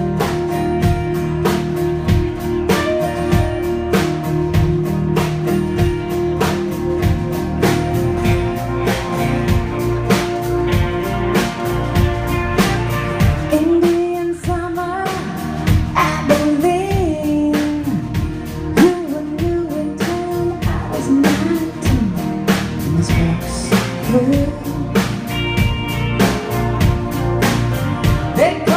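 Live country-rock band playing a song with a steady drum-kit beat, electric and bass guitars and strummed acoustic guitar. A woman's lead vocal comes in about halfway through.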